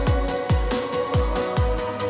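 Electronic dance music: a deep kick drum beating about twice a second under a held synth note, with no vocals.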